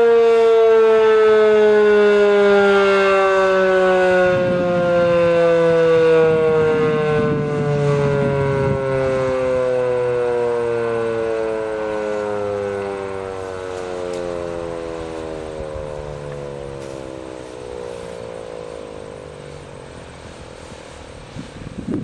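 Federal Signal 2001-DC outdoor warning siren winding down at the end of its weekly test: its wail slides slowly lower in pitch and fades as the rotor coasts to a stop.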